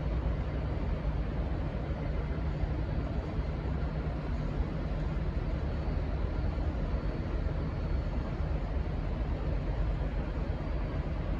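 Steady low rumble of a diesel locomotive running, without change in level.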